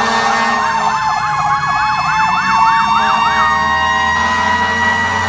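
Several fire truck sirens sounding at once: one in a fast yelp, about four rises a second, that stops about three and a half seconds in, while another winds in a slow wail, sinking and then climbing again.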